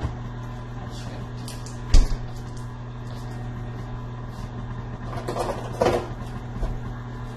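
KitchenAid stand mixer running its pasta roller attachment with a steady low motor hum as a sheet of pasta dough passes through the rollers. There is a sharp knock about two seconds in, and a couple of lighter clicks and rustles near the end.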